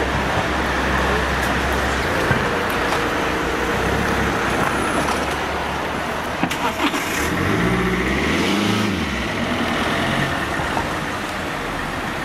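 Car engines and street traffic with steady road noise. One engine rises and falls in pitch about eight seconds in, and there are a few short clicks just before it.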